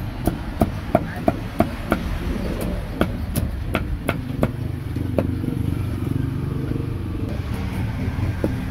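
Knife chopping grilled pork on a cutting board: sharp knocks about three a second for a couple of seconds, then a few more spaced out until about five seconds in. Steady street-traffic and motorbike rumble runs underneath.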